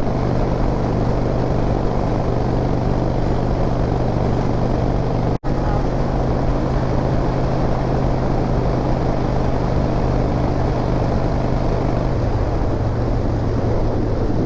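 Harley-Davidson V-twin engine running steadily while riding, under a constant rush of wind noise. The sound cuts out for an instant about five seconds in, and the engine note shifts slightly near the end.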